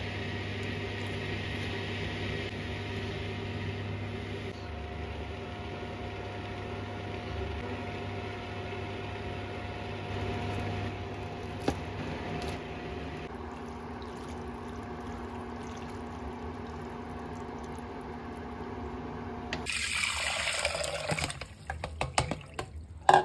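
Steady hiss and hum of water on the boil in a steel pot. Near the end, water and cooked noodles are poured from a bowl into a plastic colander with a loud splash for a second or two, followed by a few knocks.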